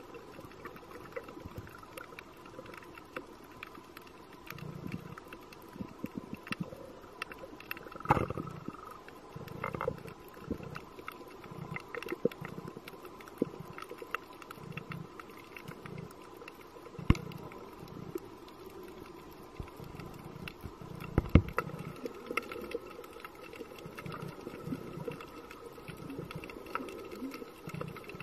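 Underwater ambience picked up by a diving camera: scattered sharp clicks and crackles over an irregular low rumble, with a faint steady hum. A few louder clicks stand out, about 8, 17 and 21 seconds in.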